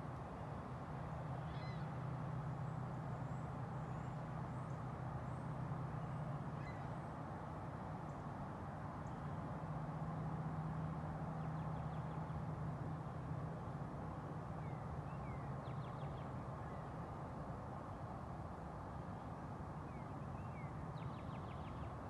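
Faint bird chirps: scattered short notes, with a couple of quick trills about three quarters of the way through and near the end, over a steady low hum and background noise.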